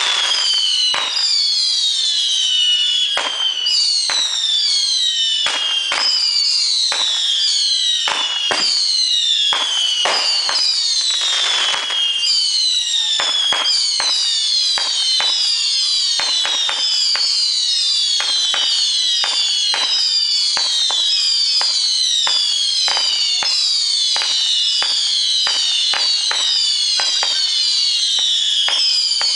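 Whistling aerial repeater firework going off: a constant stream of overlapping high-pitched whistles, each falling in pitch, with many sharp pops and cracks between them.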